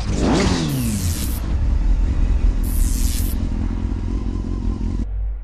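Sound effects of an animated logo intro: a motorcycle-like engine rev that falls in pitch about half a second in, two short high whooshes around one and three seconds in, over a steady low rumble.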